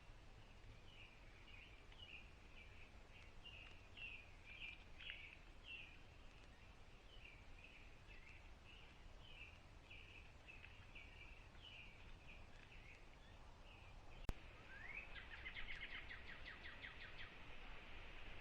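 Faint wild bird calls: a steady series of short chirps, about two a second, then a single sharp click and a rising note leading into a rapid trill near the end.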